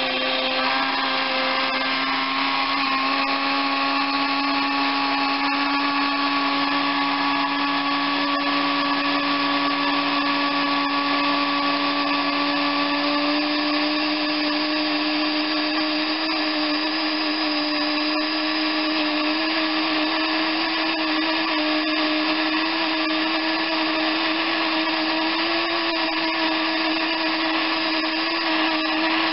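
A 1970s electric countertop blender's motor running steadily as it blends egg yolks and melted butter into béarnaise sauce, its hum rising slowly in pitch.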